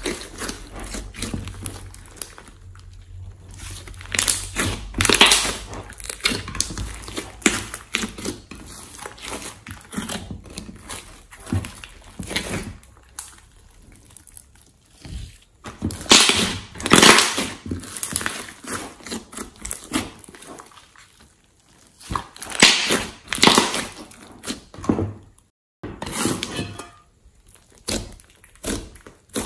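Glossy slime being squeezed, kneaded and stretched by hand, making irregular squishing bursts with short quiet gaps, the loudest handfuls about five, seventeen and twenty-three seconds in.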